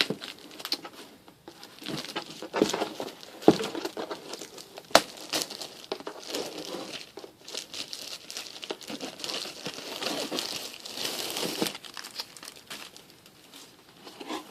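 Plastic wrapping being torn and crinkled off a vinyl picture-disc record, in irregular crackles with a few sharp snaps and a longer stretch of steady crinkling near the end.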